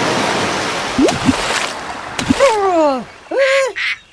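Cartoon water splash sound effect, a rushing wave that fades over about two seconds, followed by short squeaky character cries whose pitch slides, mostly falling.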